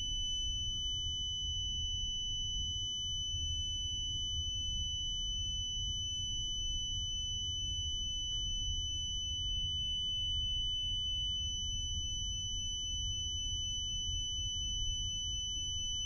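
A clamp meter's continuity beeper holds one steady high-pitched tone, over a low background rumble. The unbroken beep shows that the changeover switch in the fan coil's pipe sensor is still closed between its black and red leads while the sensor chills in ice water.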